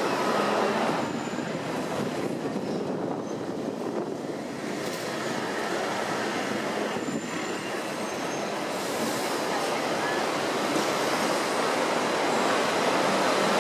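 Hong Kong double-decker electric tram running along its street tracks, heard from on board: a steady rolling rumble and rattle of the car, growing a little louder near the end.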